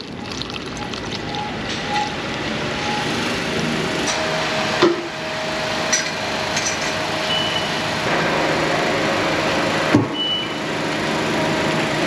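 Shop compressed air hissing steadily into a refillable solvent sprayer can as it is pressurised, with a couple of brief knocks.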